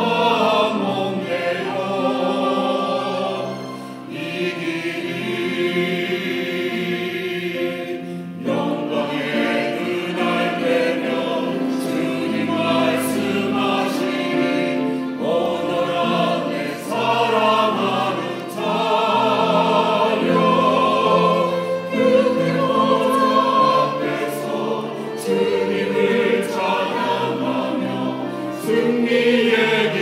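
Mixed church choir of men's and women's voices singing an anthem, with piano accompaniment. The singing swells and eases, with a short drop in loudness about four seconds in.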